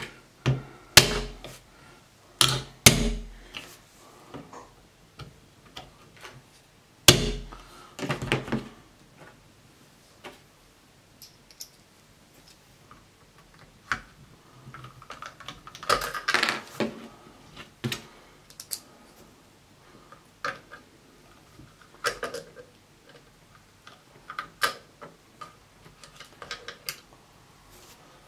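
A flat-edged punch tapped against a one-way anti-tamper screw on a Crosman 2250 air rifle to loosen it, with a few sharp taps near the start and again about seven seconds in. Then come scattered clicks and scraping of tools and hands as the loosened screw is worked out.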